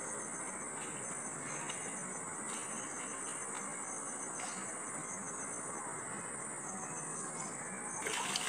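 Insects trilling in one steady, unbroken high-pitched drone, with a brief louder rustle near the end.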